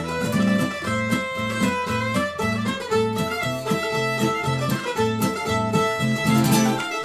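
Live acoustic string trio playing a tune: a bowed fiddle carries the melody over a strummed acoustic guitar and a plucked mandolin-family instrument keeping a steady rhythmic pulse.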